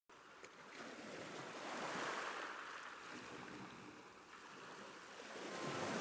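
Ocean waves washing in, a soft even hiss that swells about two seconds in and again near the end.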